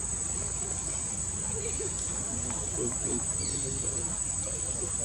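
Insects droning in one steady, high-pitched whine, over a low background rumble.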